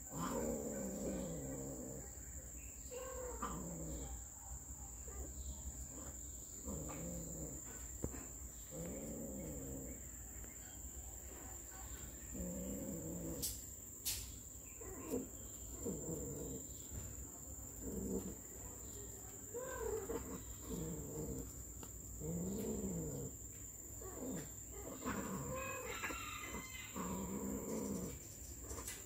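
Domestic cats yowling: long, wavering, drawn-out cries that rise and fall in pitch, repeated every second or two.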